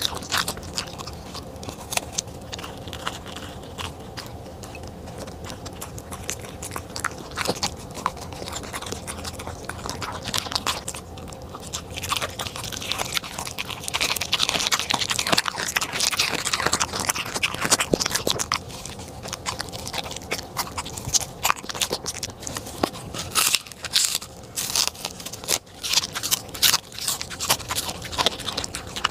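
A corgi chewing and crunching food off a plate, a steady run of wet bites and crisp crunches. It grows louder and denser near the middle, as it eats the water spinach stalks, and again near the end.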